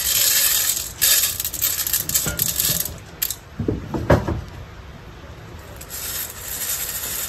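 Dry cat kibble poured from a carton into a large stainless steel bowl: a rattling hiss of pellets hitting the metal for about three seconds, then quieter, scattered rattles as the bowl is handled. A short rising-and-falling cry is heard about four seconds in.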